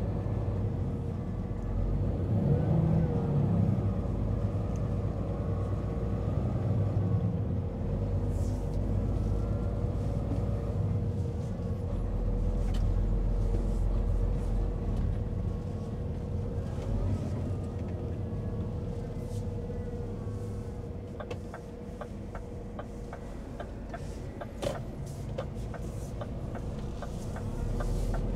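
Timber truck's diesel engine running steadily with a low rumble and a constant faint whine. Light clicks come in over the last several seconds, with one sharper knock among them.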